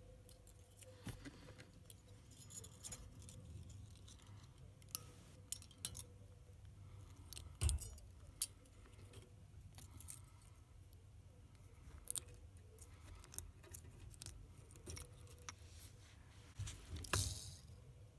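Faint handling noise: small scattered clicks and ticks of fine coil wire and a disc-shaped wire spacer being worked by hand as the wire is wrapped around the spacer's screw, with one louder knock a little before halfway and a brief rasp near the end.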